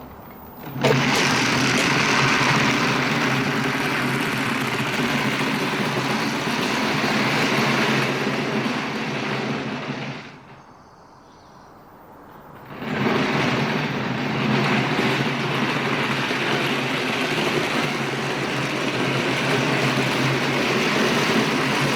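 Furniture-dolly casters screaming loud as they roll over pavement under a towed trailer, a steady racket that starts about a second in, fades out for a couple of seconds midway, then comes back. The casters are made for carpet, not pavement.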